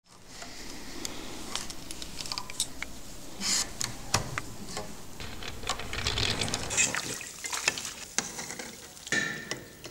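Raw wool being worked through the metal tines of a wooden hand comb: a run of scratchy rasping with many light clicks. Near the end, liquid sloshing as a hand stirs in a vat.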